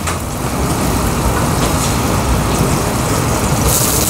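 Butter sizzling in a hot stainless sauté pan on a gas range, over a steady low rumble. Near the end a louder, sharper sizzle starts as the cut stems of bok choy and tatsoi go into the pan. The pan is a little too hot, and the butter is starting to brown.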